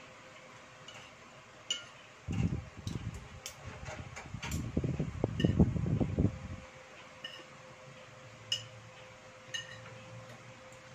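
Metal fork and spoon clinking and scraping on a ceramic plate of rice, a few sharp clinks spread through. In the middle comes a stretch of low, muffled thuds lasting about four seconds, the loudest part. A faint steady hum runs underneath.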